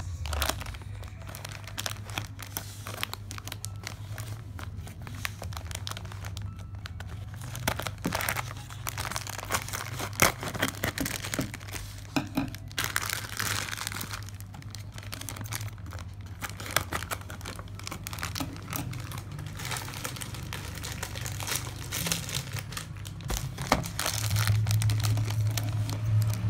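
Plastic courier mailer bag crinkling and rustling as it is handled and opened by hand, in irregular crackles.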